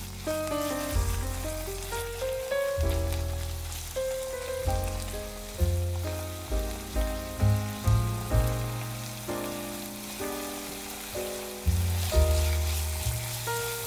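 Background music with a melody of struck notes over a low bass line. Underneath it, ground beef and diced onion hiss steadily as they fry in the pan.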